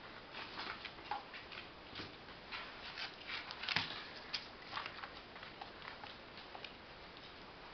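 Claws of five-week-old Labrador retriever puppies clicking and pattering on a hard floor as they scamper about: light, irregular ticks, busiest in the first half and thinning out near the end.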